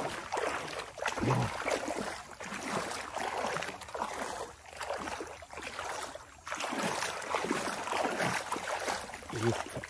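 Shallow muddy water sloshing and splashing in irregular strokes as a person wades through it, with a couple of short grunts about a second in and near the end.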